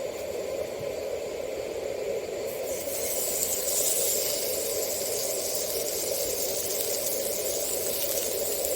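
A steady hiss with a low rushing band under it, the high hiss growing brighter about three seconds in.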